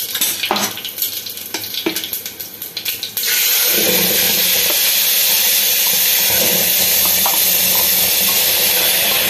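Whole spices crackling in hot mustard oil in a pressure cooker. About three seconds in, the wet tomato-onion masala paste hits the oil and it breaks into a loud, steady sizzle.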